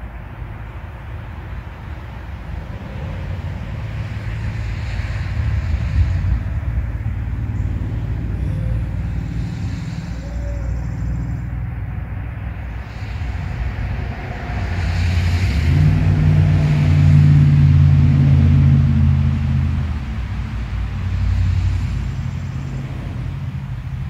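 Motor traffic passing on a nearby road: a steady low engine hum that swells to its loudest for a few seconds past the middle, then fades.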